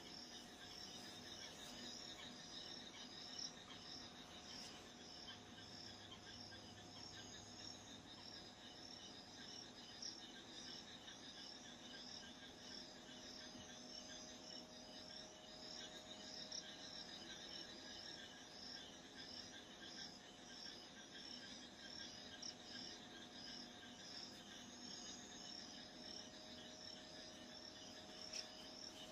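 Faint crickets chirping in a steady, evenly pulsed high-pitched rhythm, with a thin steady hum underneath.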